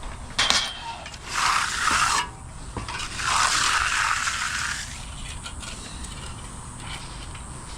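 A sharp knock, then two scraping strokes of about a second each: a hand tool dragged across fresh concrete.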